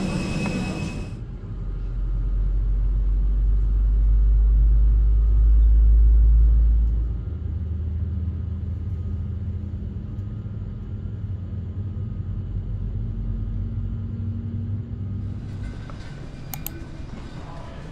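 Airliner cabin noise: a deep rumble that is heaviest for the first several seconds, then eases at about seven seconds into a steadier, lower drone with faint humming tones. Near the end it gives way to a quieter, brighter room ambience.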